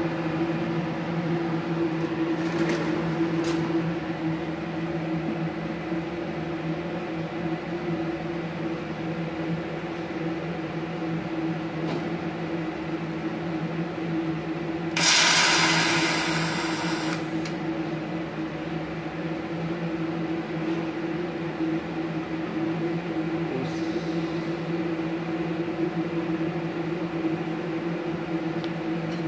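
Steady hum of a switched-on MultiPro TIG315AD inverter TIG welder and its water cooler running idle. About halfway through, a loud hiss lasts about two seconds and then fades.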